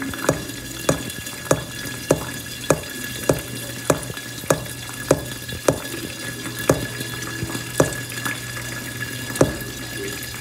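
A fingertip tapping on a glass saucepan lid in a steady rhythm, about three taps every two seconds, over the steady hiss and low hum of the pan heating on a gas hob. No kernels pop yet.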